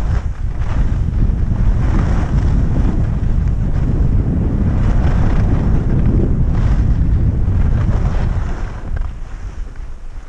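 Wind buffeting the microphone of a camera carried by a downhill skier, with the hiss of skis scraping across the snow swelling on each turn, about every two seconds. The wind noise eases near the end.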